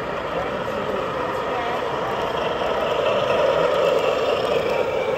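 A model train running amid indistinct crowd chatter in an exhibition hall, the running sound growing louder about three seconds in.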